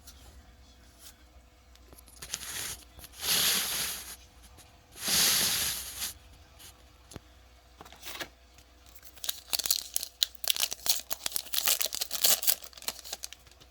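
A trading card pack's wrapper torn open in two long rips, followed by a few seconds of rapid crinkling and crackling.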